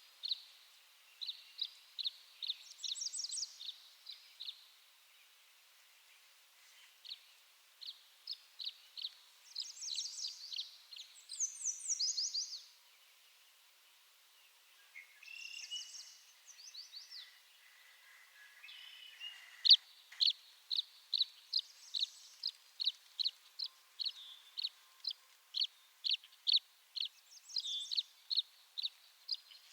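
Tree swallow singing: runs of short, high chirps broken by quick twittering bursts of rapid falling notes, with two short pauses. In the second half the chirps come in a steady series, about two a second.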